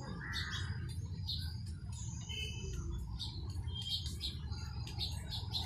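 Sparrows chirping in a steady run of short, high chirps.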